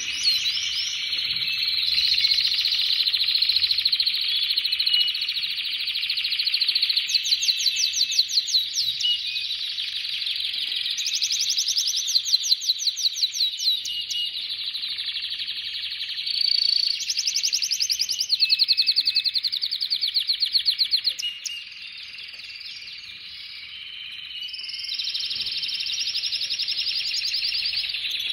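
Domestic canary singing a long, continuous song of warbled phrases broken by several fast trills of rapidly repeated notes. The song drops away for a few seconds about three-quarters of the way through, then picks up again.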